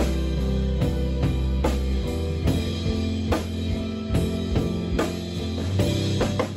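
A live rock band playing: a drum kit keeping a steady beat over guitar and sustained low bass notes.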